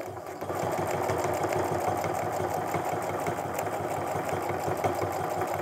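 Domestic sewing machine stitching steadily at speed through a quilt sandwich, its needle going up and down in a fast, even rhythm. The stitching picks up about half a second in.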